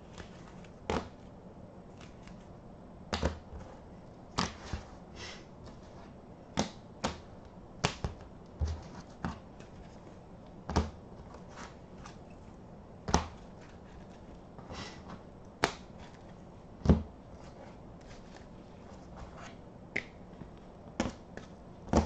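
Trading cards in rigid plastic toploaders being handled, stacked and set down on a tabletop: irregular sharp plastic clicks and taps, a few seconds apart or in quick pairs.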